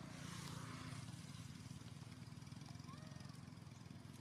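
Faint, steady low hum of a running motor engine. A brief rustle comes in the first second, and a few short chirps come about three seconds in.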